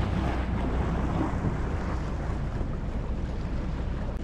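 Small fishing boat underway: a steady low motor hum with water washing past the hull and wind buffeting the microphone.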